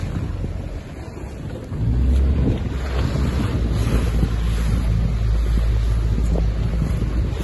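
Wind buffeting the microphone on a moving boat, over the rush of sea water. The low rumble of the wind gets louder about two seconds in and stays.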